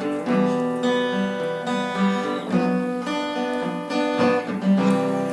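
Background music: strummed acoustic guitar with sustained chords.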